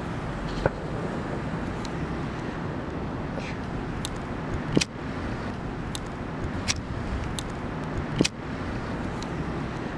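Steady road-traffic noise with a few sharp clicks: one about a second in, the loudest near the middle, and another past eight seconds.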